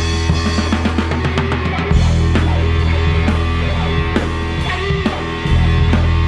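Psychedelic rock band playing live: drum kit, bass and guitar in a passage with no vocals, the bass moving to a new note about two seconds in and again near the end.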